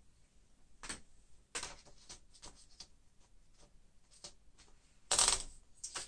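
A sheet of paper being fed into a 1940 Royal Signet manual typewriter: paper rustling and a run of light, irregular clicks as the platen is turned, then a louder paper rustle about five seconds in.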